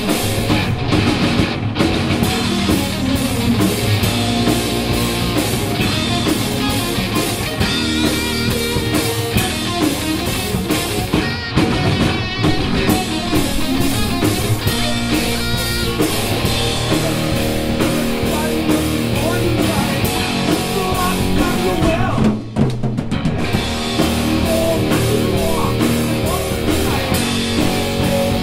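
Live heavy metal band playing an instrumental passage: distorted electric guitars, bass guitar and a full drum kit, loud and steady, with a momentary break in the playing about three-quarters of the way through.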